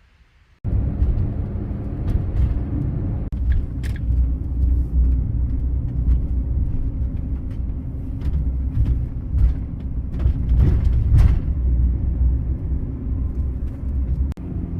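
Steady low rumble of road and engine noise inside a moving vehicle, with scattered light knocks and rattles.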